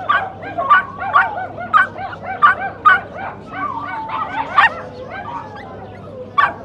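Dog yipping and whining in quick short cries, several a second, easing off after about five seconds, with one sharp yip near the end.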